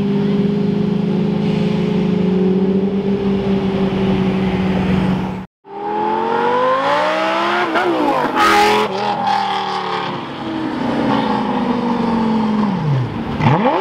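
Lamborghini Murciélago V12 running at a steady, even note, cut off abruptly about five and a half seconds in. Then a Lamborghini Gallardo V10 accelerates hard, its pitch climbing through the revs, with a sharp crack about eight and a half seconds in. Near the end its note falls away as it pulls off.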